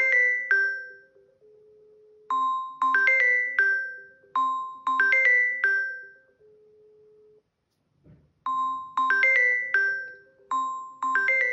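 Samsung Galaxy A04 smartphone ringing for an incoming call: a chiming, mallet-like ringtone melody in short repeating phrases. It breaks off for about a second a little past the middle, then starts again.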